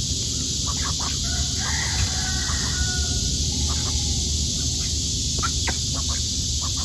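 A rooster crowing faintly in the background about two seconds in, over a steady high insect hiss. Ducks make light clicks as they peck grain from the ground.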